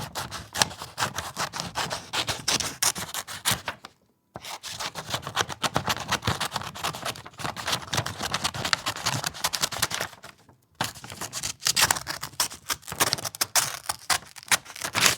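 Scissors cutting paper: quick repeated snips in three runs, with short breaks about four and ten seconds in.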